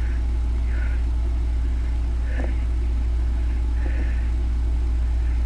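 A steady low hum that never changes, with a few faint, short sounds over it.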